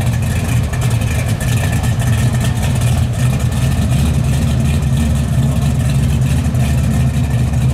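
1971 Chevrolet Camaro pro street car's engine running at a steady idle, a loud low exhaust note that holds level without revving.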